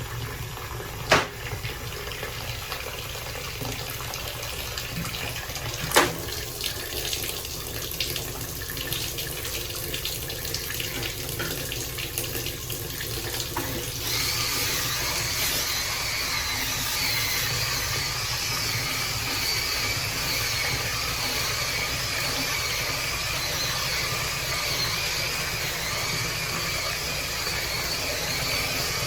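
Two sharp knocks in the first few seconds, then, about halfway through, water starts running steadily from a tap into a sink.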